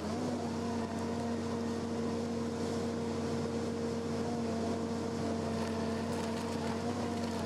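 Engine of a stump grinding and root chopping machine running at a steady speed, a constant hum.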